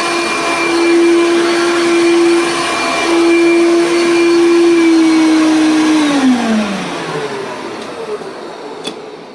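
Vintage Hoover Concept 1 Heavy Duty Power Drive upright vacuum running loud with a steady high whine, then shut off about six seconds in, its motor and brush roller winding down in a falling pitch. A single light click comes near the end.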